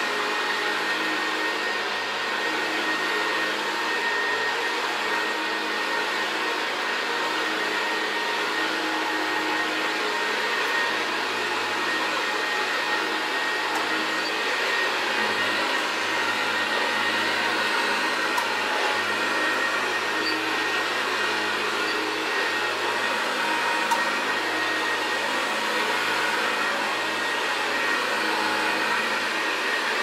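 Vintage Hoover Convertible Model 70 upright vacuum cleaner running steadily as it is pushed over carpet: an even motor rush with a steady high whine.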